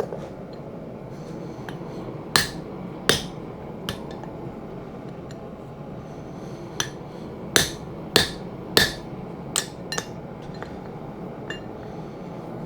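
Blacksmith's hammer striking hot steel on an anvil: about ten blows in irregular groups, with a short metallic ring after each, quickest between about seven and ten seconds in. A steady low rushing noise runs underneath.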